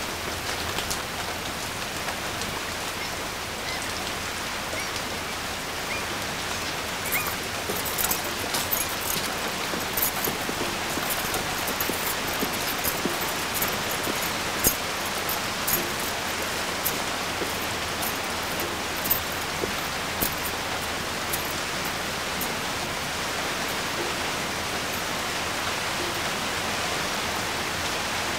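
Steady rain falling, a constant hiss. Scattered sharp ticks of drops hitting something close by come from about seven seconds in until about twenty.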